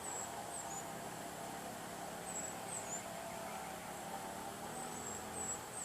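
Faint outdoor ambience: a steady low hum with a few faint, very high, short chirps from a small bird, heard several times.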